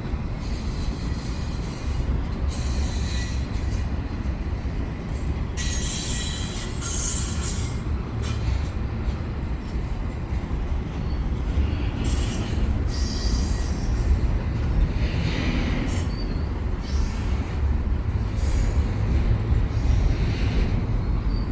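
Long double-stack freight train rolling past: a steady rumble of steel wheels on the rails, with high-pitched wheel squeal and hissing that come and go.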